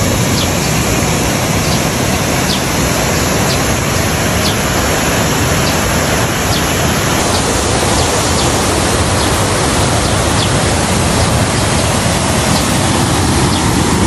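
Steady rush of a waterfall and its stream pouring over rocks, with faint short high chirps about once a second.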